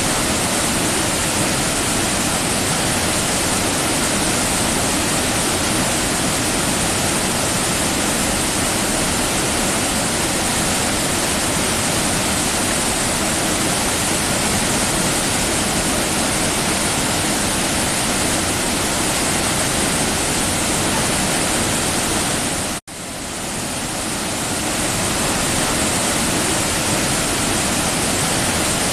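Waterfall rushing in a loud, steady roar of water. About 23 seconds in, the sound cuts out for an instant, then swells back up over a second or two.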